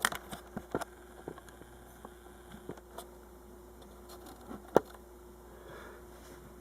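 Handling noise: scattered light clicks and taps, with one sharp click about three-quarters of the way through, over a faint steady hum.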